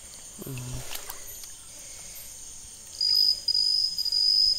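Night insects: a steady high-pitched hum throughout, then a loud, steady, high cricket trill that starts about three seconds in. There is a brief low voice sound near the start.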